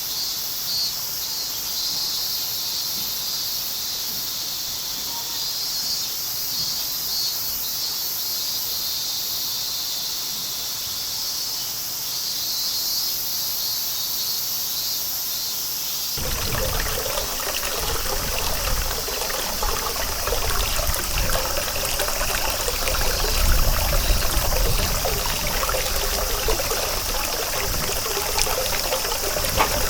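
Cicadas droning in a high, pulsing chorus. About halfway through, running water comes in suddenly, loud and full, with the cicadas still heard above it.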